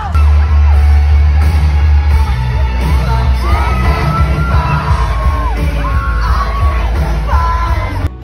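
Live pop concert: a singer holding long high notes, each sliding up at its start, over a loud, heavy bass.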